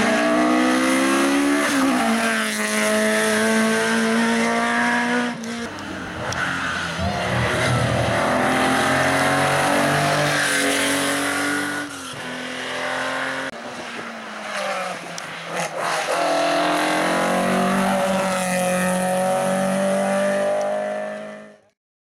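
Hillclimb rally cars, a Ford Escort Mk2 and later a classic Porsche 911, accelerating hard at full throttle. Each engine's pitch climbs and then drops at every upshift. The sound cuts off abruptly just before the end.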